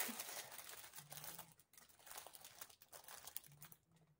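Faint crinkling of a plastic bag around a stack of small clear plastic storage boxes as they are pulled out and handled, dying away near the end.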